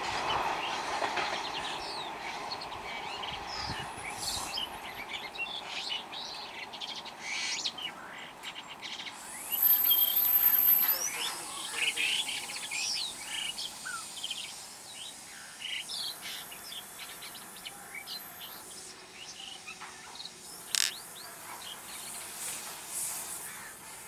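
Small birds chirping and calling repeatedly, with the noise of a departing train dying away in the first couple of seconds. About ten seconds in comes the loudest stretch of calls, lasting about a second and a half, with a thin, very high whistle over it.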